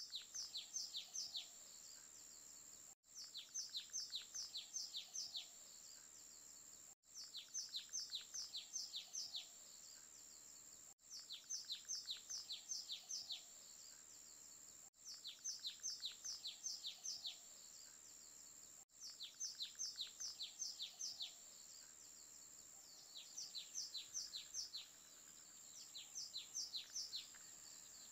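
Recorded birdsong: a bird repeats a phrase of six or seven quick, downward-sliding chirps about every four seconds over a steady high hiss. The same short recording is looped, with a brief dropout between repeats.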